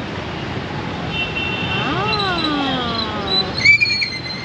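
Busy city street traffic with vehicle horns sounding over the engine noise, one short sharp horn toot coming near the end. A pitched sound rises and falls once around the middle.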